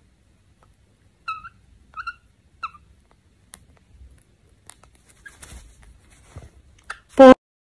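Rosy-faced lovebird giving three short chirps, each about two-thirds of a second apart, then faint clicks and rustling as it nibbles a fleece blanket. Near the end comes a single very loud, brief pitched burst, the loudest sound here.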